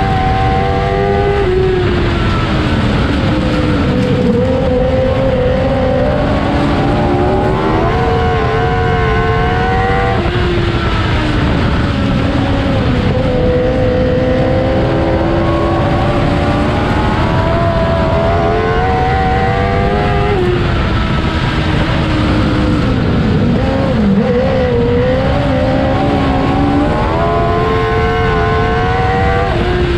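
Modlite race car's engine heard from inside the cockpit at racing speed, its pitch climbing and falling in long swells every few seconds as it laps, over a steady low rumble.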